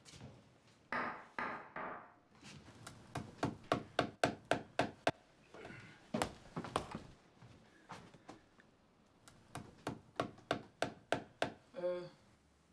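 Hammer blows in two runs of about eight quick strokes each, roughly three or four a second, with a few scattered knocks between the runs.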